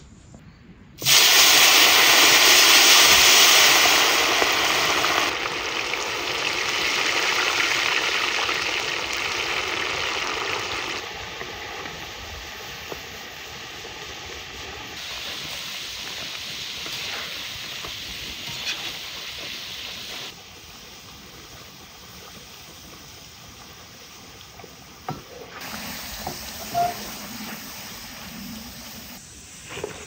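Sliced potatoes deep-frying in hot oil in a wide black pan: a loud sizzle breaks out about a second in as the slices hit the oil, then settles to a quieter, steady frying sizzle. A few light knocks of the wire skimmer come near the end.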